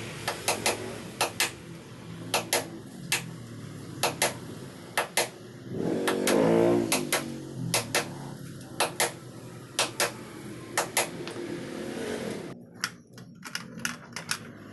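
Claw hammer striking the wooden frame of a table again and again, the blows often coming in quick pairs about a second apart, over a steady low hum.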